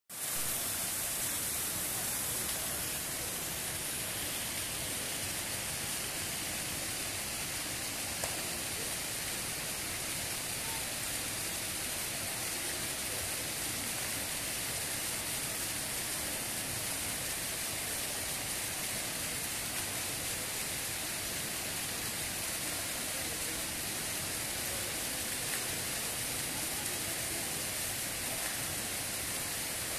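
Multi-jet fountain running, its water jets splashing into the basin in a steady, even hiss.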